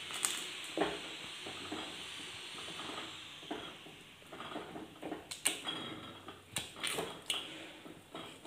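Wooden spoon stirring thick cooked millet and jaggery syrup in a pressure cooker pot: a scraping, sloshing stir with irregular sharp knocks of the spoon against the pot, more of them in the second half.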